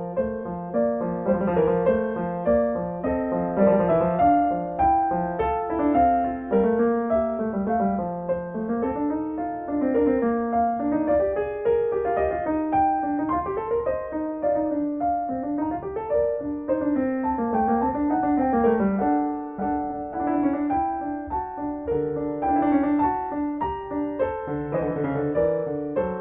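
Background piano music with a flowing melody.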